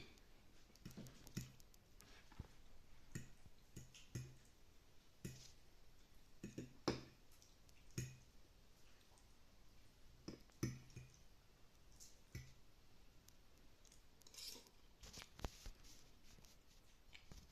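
Faint, close-up sounds of a person eating: irregular wet mouth clicks and smacks of chewing, a second or so apart.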